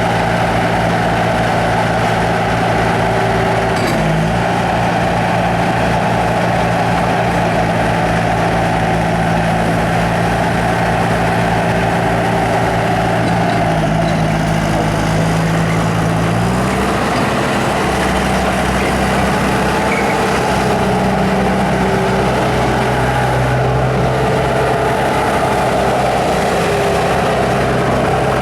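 Bobcat T300 tracked skid steer's diesel engine running steadily, its speed shifting a few times: a change about four seconds in, a dip around thirteen seconds and a rise to a slightly higher note around seventeen seconds.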